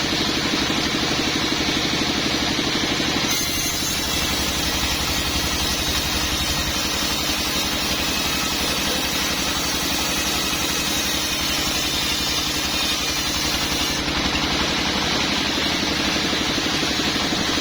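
Sawmill machinery running steadily with an engine-like hum. From about 3 seconds in until about 14 seconds a brighter hiss joins it, as the saw cuts through a teak log.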